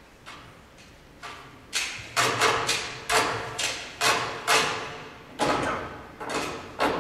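Sharp percussion strikes with a short ringing tail: a couple of faint ones at first, then from about two seconds in a fast, uneven run of loud strikes, two or three a second, with a short break near the end.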